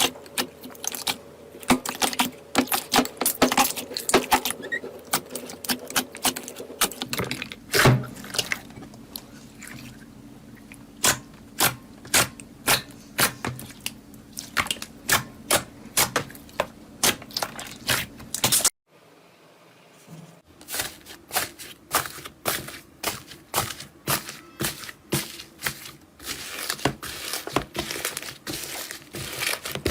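Slime being squished and worked, making a dense, irregular stream of sticky clicks and crackles. The sound breaks off briefly about two-thirds of the way through, then the clicking starts again.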